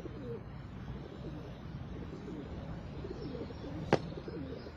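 Pigeons cooing, several overlapping low, wavering calls, with a single sharp click about four seconds in.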